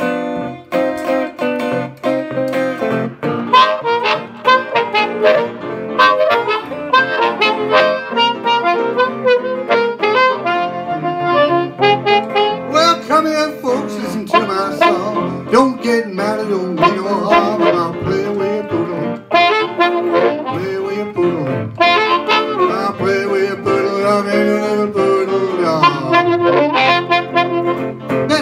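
Blues instrumental: amplified harmonica playing the lead with bent, sliding notes over an electric guitar's rhythm accompaniment.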